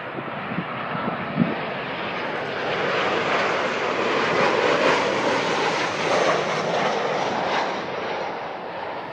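Southwest Boeing 737's CFM56 jet engines as the airliner flies low past on landing approach, gear down: a jet roar that swells to its loudest about halfway through and fades as it moves away. A brief thump about a second and a half in.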